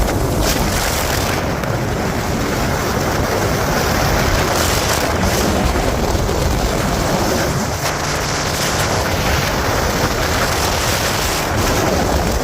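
Steady rushing, hissing water, even and unbroken throughout, like water pouring or churning through a canal lock.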